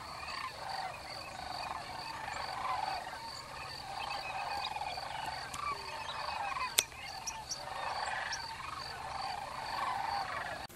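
A dense chorus of many wetland animals calling at once, overlapping rolling, trilled calls with no break, and a faint high chirp repeating about twice a second. There is one sharp click about two-thirds of the way through.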